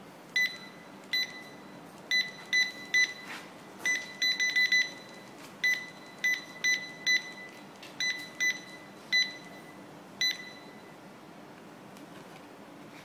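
Industrial handheld laser barcode scanner beeping on each good read: about twenty short, identical high beeps, some single and some in quick runs of three or four, stopping about ten seconds in.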